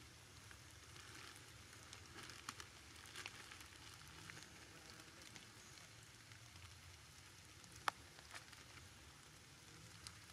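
Very quiet scene with faint crinkling of a clear plastic sheet around a closed umbrella as it is handled. A few sharp ticks stand out, the loudest about eight seconds in.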